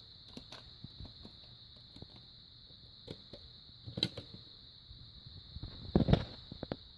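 Scattered light clicks and taps of small objects being handled, with two louder knocks about four and six seconds in, over a faint steady high-pitched whine.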